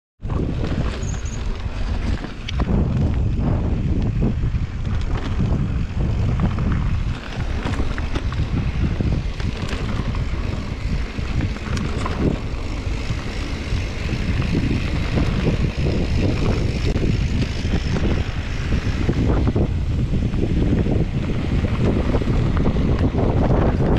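Wind buffeting the microphone of a mountain bike-mounted camera, over the rumble of knobby tyres rolling on a gravel dirt track. Frequent small clicks and rattles come from the bike jolting over bumps.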